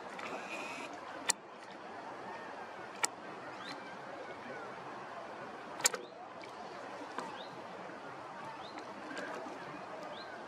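Steady outdoor lakeside background noise with faint distant chirps, broken by three sharp clicks from the camera being handled, the loudest about six seconds in. A brief whir of the camera's zoom or focus motor comes at the very start.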